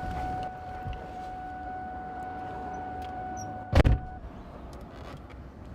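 A car's steady door-open warning tone sounds. About four seconds in, the car door shuts with a loud thud, and the tone stops a moment later.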